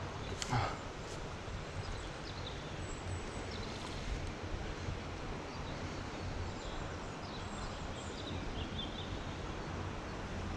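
Steady outdoor background noise with faint, scattered bird chirps, and one short, sharp noise about half a second in.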